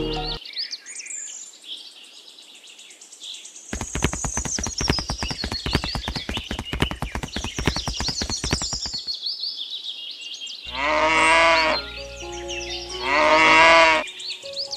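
Birds chirping over light background music, with a run of rapid clicks in the middle. Near the end come two loud farm-animal calls, each about a second long and wavering in pitch.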